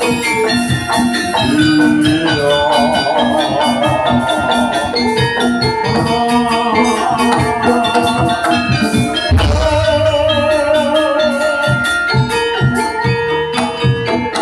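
Jaranan music: a gamelan-style ensemble with ringing metal percussion and steady drumming. A deep bass beat comes in about nine and a half seconds in.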